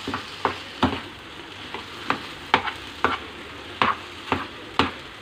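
A spatula stirring spiced mashed potato in a non-stick frying pan, knocking and scraping against the pan about twice a second, over a steady sizzle of the frying oil.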